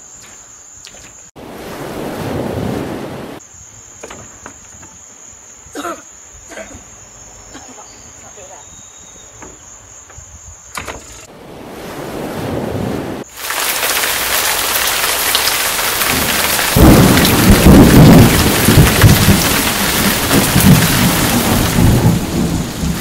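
Crickets chirping in a steady high trill, broken twice by brief rushing swells of noise. About halfway through, heavy rain sets in. A few seconds later loud rolling thunder joins it, the loudest part.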